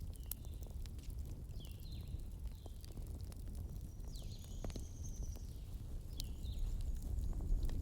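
Campfire burning: a low rumble with scattered sharp crackles and pops. Short high chirps come every second or so, with one longer high whistle near the middle.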